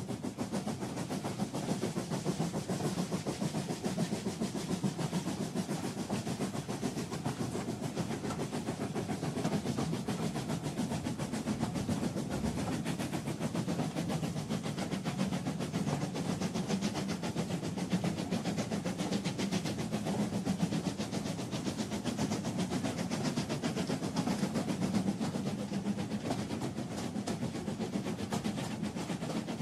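A moving train: a steady rumble with a fast, even rattle of rolling wheels.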